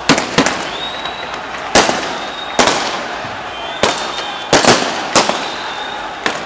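Gunshots, about nine sharp cracks at uneven intervals, each with an echo trailing after it, over a steady background din. A thin high tone comes and goes behind them.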